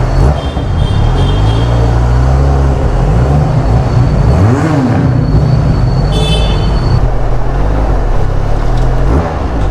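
Benelli TRK 502's parallel-twin engine running as the bike is ridden, its note rising and falling with the throttle. Brief thin, high-pitched tones sound twice in the background, near the start and about two-thirds of the way in.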